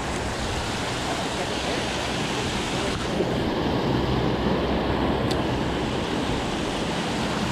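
Steady rush of water pouring over a low-head dam spillway, a little louder from about three seconds in.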